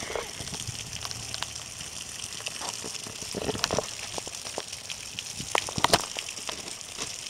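Rain falling steadily: an even hiss with scattered drips and splashing taps, a few louder ones near the middle and about six seconds in.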